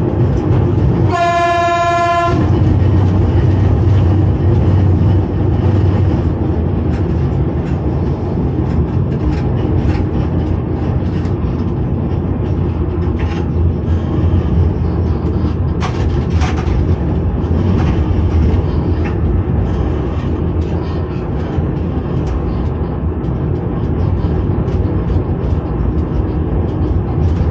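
Short whistle blast from a 1981 Reko electric railcar set about a second in, heard from the driver's cab of its control car. After it comes the train's steady running rumble, with a few clicks over the rail joints.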